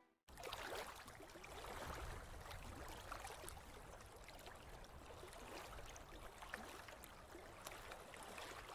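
Faint water noise from a reef aquarium: a soft gurgle and trickle of circulating water, with scattered small ticks.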